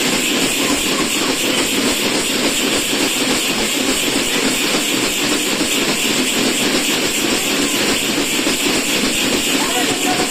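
Tappeta gullu folk dance: a group of small hand-beaten tappeta frame drums played together in a fast, steady rhythm, over the continuous jingling of the bell clusters tied at the dancers' waists.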